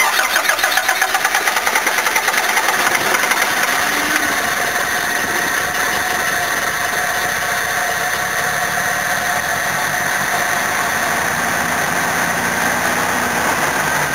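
Badly fuel-flooded Toyota HiAce petrol engine cranking and catching: it runs unevenly with a regular pulsing beat for the first few seconds, then settles into a steady run. The flooding comes from an overflowing carburettor float bowl.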